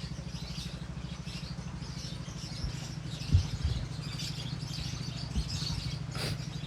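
Lovebirds chirping repeatedly over a steady, fast-pulsing low hum, with a few short thumps about halfway through.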